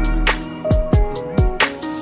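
Background music with a drum beat: low kick-drum thumps and sharp snare strikes over sustained pitched notes.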